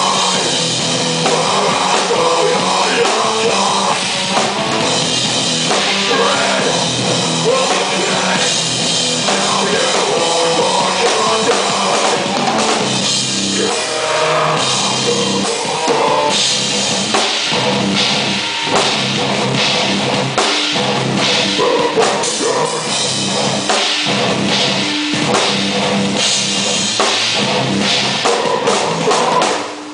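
Live heavy rock band playing loudly: pounding drum kit with electric guitars and bass, with a brief drop in loudness near the end.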